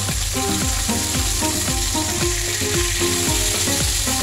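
Chicken legs sizzling as they fry in oil in a stainless steel pan, over background music with a steady beat.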